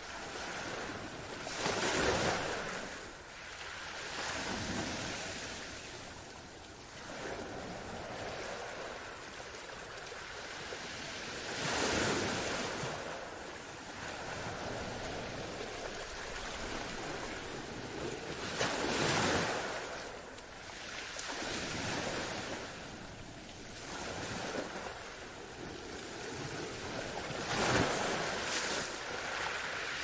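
Ocean surf: a steady wash of waves with four bigger breakers swelling up and falling away, several seconds apart.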